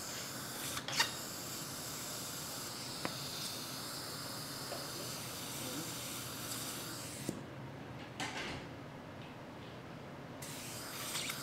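Dental implant handpiece running at low speed with a suction hiss as it drives a 2.5 mm mini dental implant into the upper jaw. The hiss and faint whine stop about seven seconds in, with a few sharp clicks, then start again near the end.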